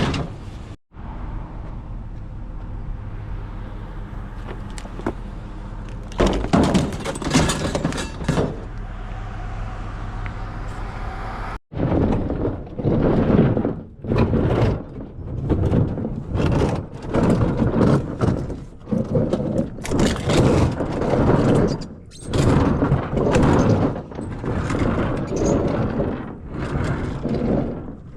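A vehicle engine idling steadily, then a run of thuds and clattering as discarded metal junk is handled and loaded.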